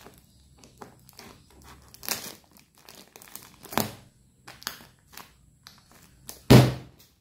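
Scissors cutting into a clothing bale's tight plastic wrap and strapping: the plastic crinkles and crackles, broken by a few sharp snaps, the loudest and heaviest one about six and a half seconds in.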